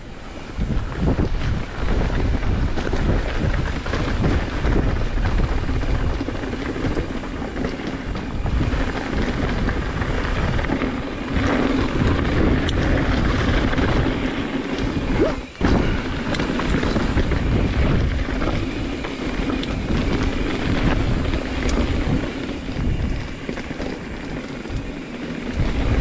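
Strong wind buffeting the action-camera microphone as a hardtail mountain bike rolls down a rough trail, a steady loud rush with low gusty rumbles; it drops out briefly about fifteen seconds in.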